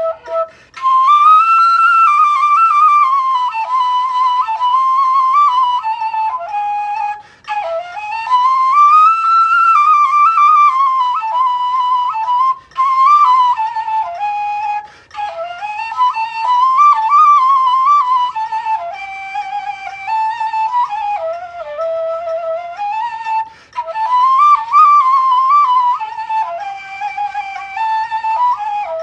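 Bulgarian kaval, a wooden end-blown flute, playing a solo melody in phrases that rise and fall with quick little turns, broken by short pauses for breath.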